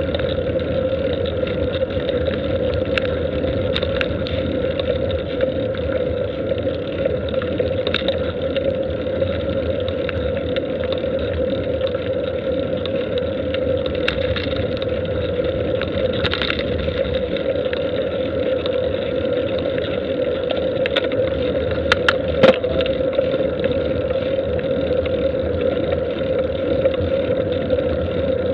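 Steady droning road and wind noise from a camera moving slowly along a paved road, with scattered light clicks and a pair of sharper knocks about three-quarters of the way through.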